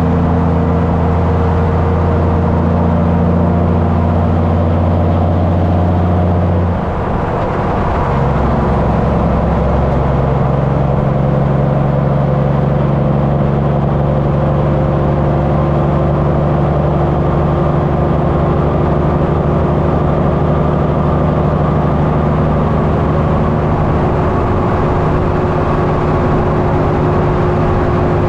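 Semi-truck diesel engine running steadily, heard close up at its twin chrome vertical exhaust stacks. About seven seconds in, the note dips briefly and changes pitch, then settles and runs steady again.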